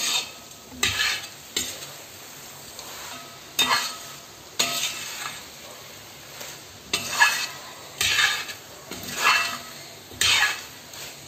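A metal spoon scraping and turning chicken pieces through onion masala in a wide brass uruli, in about ten irregular strokes, some with a slight metallic ring. A low sizzle of the frying mix runs between the strokes.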